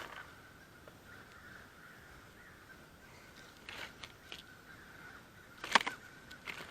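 Crows cawing in alarm: a few short, harsh caws scattered through, the loudest a little before the end.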